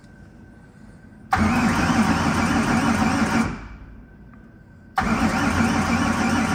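Car starter cranking the engine over twice, each burst about two seconds long with an even pulsing beat, the engine not firing. The injector harness is unplugged, so the engine only turns over on the starter.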